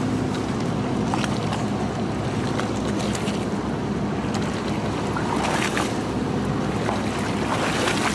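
Fishing boat's engine running with a steady low hum, over sea water washing against the hull and wind on the microphone, with a few faint splashes or knocks.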